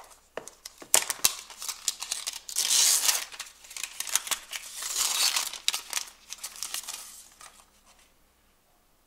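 Crinkling and tearing of the protective wrapping as it is pulled off a laptop power adapter, with small knocks from handling the adapter in the cardboard box tray. It comes in quick rustling bursts, loudest around the middle, and dies away near the end.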